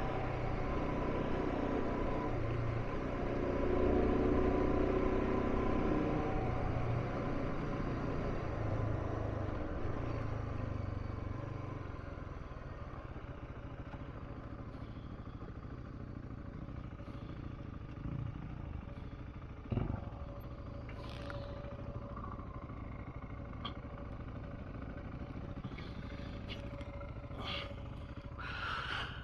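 Dual-sport motorcycle engine running under way, louder for about the first twelve seconds, then lower and steadier. A single sharp knock sounds about twenty seconds in.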